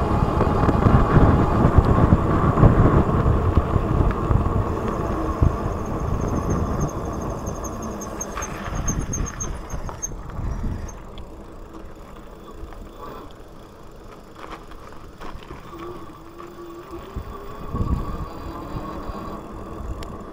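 Wind rushing over the camera microphone with tyre and road noise from an e-bike ride at speed, loudest at first and dying away through the second half as the bike slows down.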